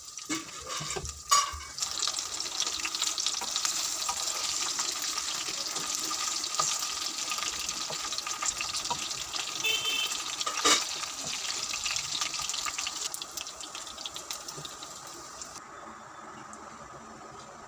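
Chicken pieces deep-frying in hot oil, with a steady crackling sizzle and two sharp knocks. The sizzle dies down near the end.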